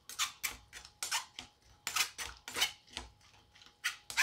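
Metal ladle scraping and pressing against a stainless steel mesh strainer as it mashes soft, cooked star gooseberry flesh, in quick, uneven strokes several times a second.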